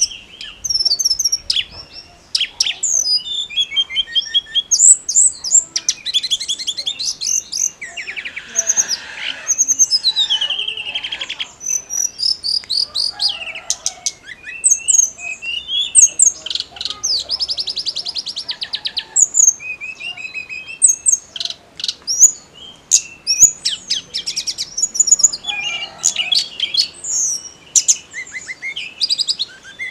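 Tledekan gunung, a small Indonesian songbird, singing non-stop: a continuous run of high, quick chirps, rapid trills and sweeping notes with hardly a pause.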